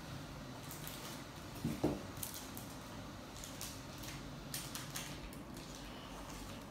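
Foil wrapper of a Pokémon card booster pack crinkling and rustling as it is cut open with scissors and pulled apart, with one louder knock a little under two seconds in.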